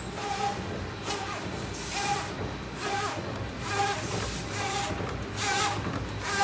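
P160 energy ball making machine running, with a rhythmic mechanical cycle repeating a little more than once a second. Each cycle has a short clatter and a brief tone.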